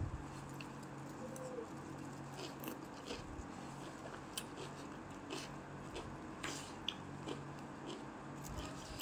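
A person chewing chicken rice, with scattered light clicks and scrapes of a metal spoon and fork in a styrofoam box, over a steady low hum.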